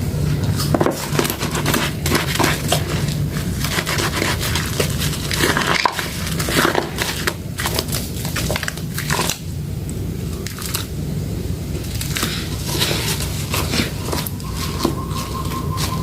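Soft soaked soap being squeezed and crushed by hand, a dense run of wet crackles and squishes over a steady low hum.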